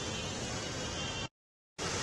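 Vehicles driving through a flooded street: a steady wash of floodwater splashing and churning around their wheels. It is broken by a half-second gap of total silence a little past a second in.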